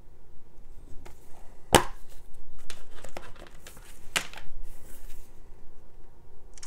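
A plastic Blu-ray keep case being handled and opened: a sharp snap a little under two seconds in as the case is popped open, and another click about four seconds in, with light rustling and ticking of plastic and paper inserts between.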